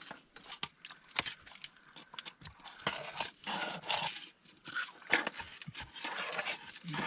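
Scattered sharp clicks and crunchy rustling, busiest from about three seconds in: the sound of a freshly caught mud crab being handled.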